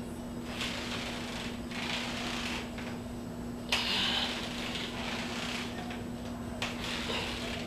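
A man exercising with a resistance band, doing curls: short hissing sounds, breaths or the band moving, come and go every second or so over a steady low hum, with a sharp click just under four seconds in and another near the end.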